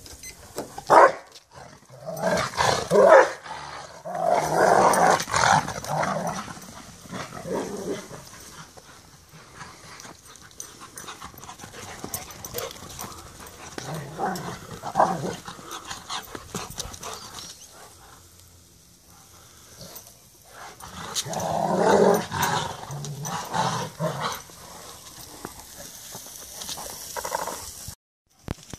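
Rottweilers vocalising during rough play, in several loud bursts with quieter stretches between.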